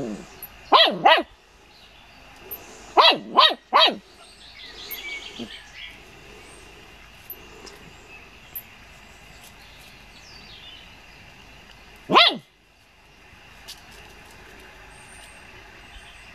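Wire-haired fox terrier puppy barking at a mole in the ground: high-pitched yaps, two in quick succession, then three, then a single one after a long pause.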